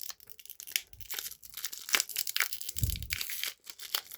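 Foil Pokémon booster pack being torn open by hand, the wrapper crinkling and ripping in a run of short crackles, with a dull knock of handling about three seconds in.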